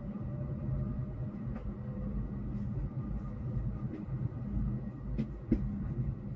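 Low, steady rumble of city road traffic heard from indoors through window glass, with a few faint ticks.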